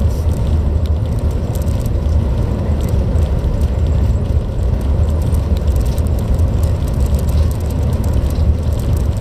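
Strong sandstorm wind buffeting the microphone: a loud, steady, deep rumble with no let-up.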